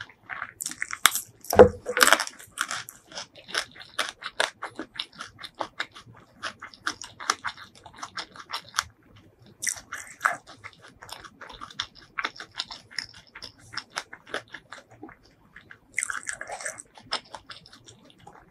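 Close-miked crunching and chewing of raw pea eggplants bitten off the stem. The loudest crunching bites come about one and a half to two seconds in, followed by steady crunchy chewing.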